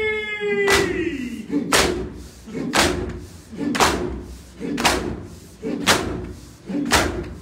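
Mourners beating their chests with both hands in unison (do dasti matam), a sharp, echoing slap about once a second. In the first second, the noha reciter's long sung note slides down in pitch and dies away.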